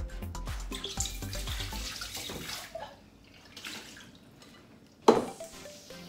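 Kitchen tap running into a sink as peeled beans are rinsed in a strainer; the water stops after about three seconds. A single sharp knock about five seconds in.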